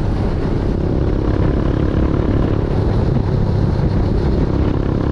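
Motorbike ridden at road speed: the engine runs steadily under a heavy rumble of wind on the microphone.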